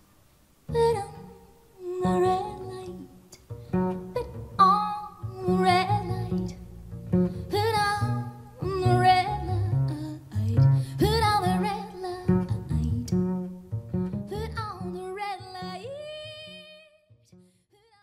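Music played through small studio monitors and picked up by a recorder in the room: a female voice singing with vibrato over plucked double bass. It starts about a second in after a brief silence and ends on a long held vocal note that fades out near the end.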